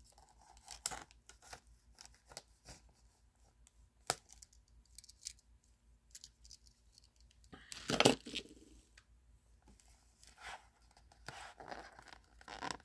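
Faint handling of baseball trading cards and a card-pack wrapper: scattered light ticks and slides, a louder tearing sound about eight seconds in, then steady crinkling and tearing as the pack wrapper is pulled open near the end.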